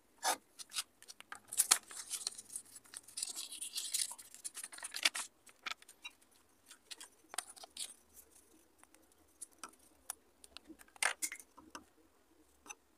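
Paper being handled and marked: a permanent marker scratching across a paper sheet beside a steel ruler, with paper rustling and creasing. A dense stretch of scratching and rustling in the first half gives way to scattered clicks and taps.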